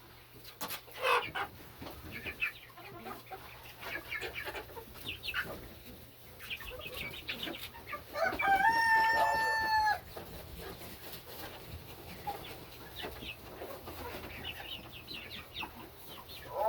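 Chickens clucking, with a rooster crowing about eight seconds in: one held call of nearly two seconds that rises, holds steady and drops at the end.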